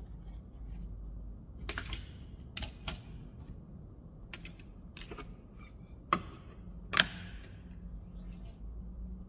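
Scattered light clicks and knocks, about a dozen of them, from small wooden parts and hand tools being handled on a workbench. The two loudest knocks come around six and seven seconds in, over a low steady hum.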